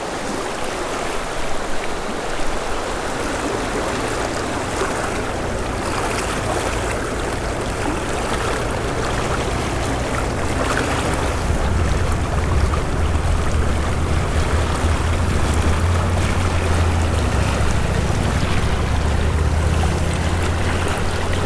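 Shallow spring creek running over cobbles: a steady rush of water. A low steady hum sits underneath and grows louder about halfway through.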